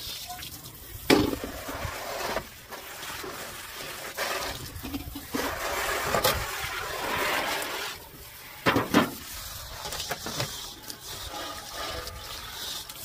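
Water spraying from a garden hose nozzle onto stainless steel cookware as it is rinsed, splashing and rushing off the metal. Two sharp metallic knocks stand out, one about a second in and another near nine seconds, as the bowls are handled.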